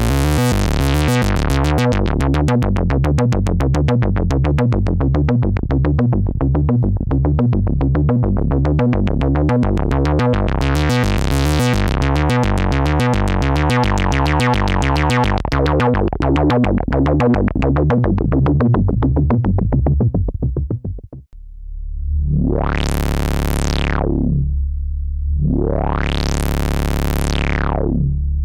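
Eurorack modular synthesizer: an oscillator through a Threetom Steve's MS-22 MS-20-style filter, playing a repeating sequenced bass line at about two notes a second whose brightness swells and fades as the filter cutoff moves. About three quarters in the sequence stops, and a single held note is swept twice by the filter, opening up bright and closing down again.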